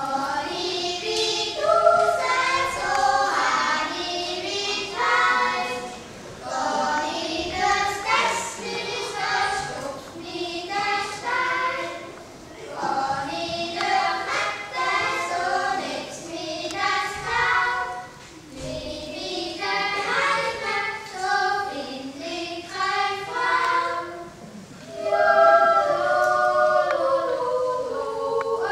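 A group of young voices singing together a cappella in parts, in phrases with short breaks between them.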